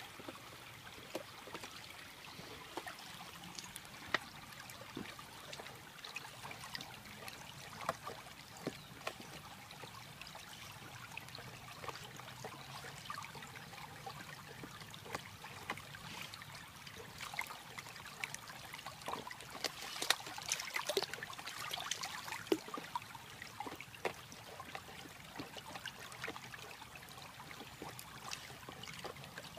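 Shallow runoff stream trickling steadily over concrete and rocks. Over it come scattered short cracks and splashes as a Chesapeake Bay Retriever gnaws and tears at a waterlogged rotten log, busiest about two-thirds of the way through.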